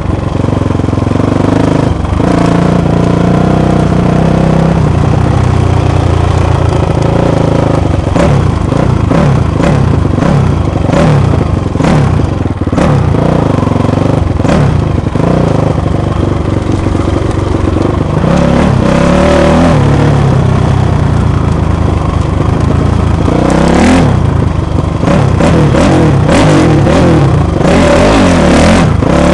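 Dirt bike engine revving up and falling back again and again as the rider works the throttle along a rough bush track, with knocks and rattles from bumps over the ground, heaviest in the middle and near the end.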